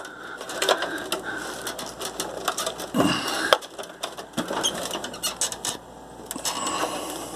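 Hand rummaging among cables and plastic connectors inside a desktop computer case: irregular rustling and scraping with small clicks, and a couple of sharper knocks about three seconds in.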